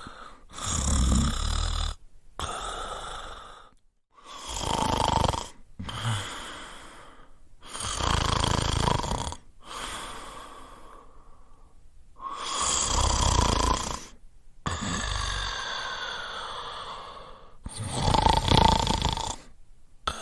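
A person snoring: five loud rasping snores about every four seconds, with a quieter breath in between each.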